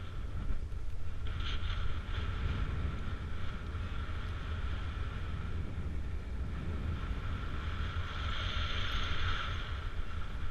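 Wind buffeting the microphone, a steady low rumble, with a fainter higher-pitched rushing that swells briefly about a second and a half in and again around eight to nine seconds in.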